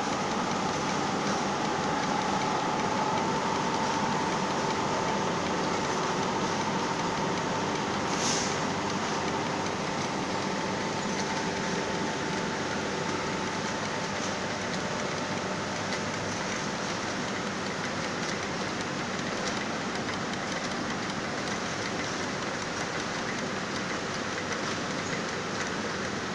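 Yarn winding machine running steadily, its shaft spinning a row of yarn cones as it winds back the yarn unravelled from defective knitted sweater fabric: an even mechanical whir with a faint whine that fades out about halfway through, and a brief tick about eight seconds in.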